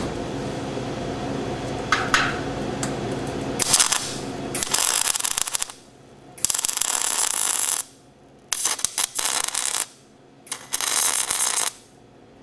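A steady low hum, then a MIG welder's arc crackling and sputtering in four bursts of one to two seconds each, with short pauses between: stitch-welding on a steel truck frame.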